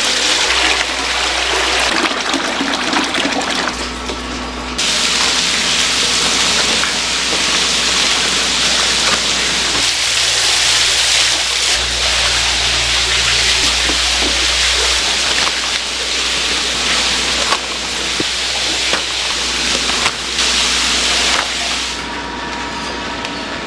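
Loud rushing, splashing water over a steady low hum. The sound shifts abruptly several times.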